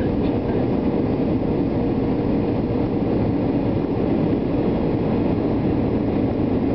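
Boeing 757 cabin noise on approach to landing: the jet engines and the air rushing past the fuselage make a steady, even low rumble, with a faint steady hum that fades about a second in.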